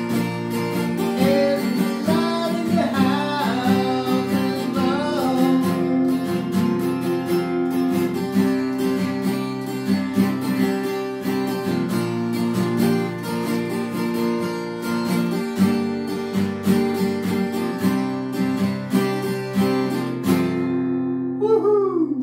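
Acoustic guitar strummed steadily, with a man singing over it in the first few seconds. The strumming stops near the end, leaving a last sliding, falling note.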